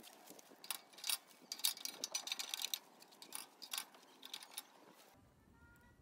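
Split firewood sticks dropped and pushed into a rocket stove's square steel feed tube: a quick, irregular run of wooden clatters and knocks against the metal, which stops about five seconds in.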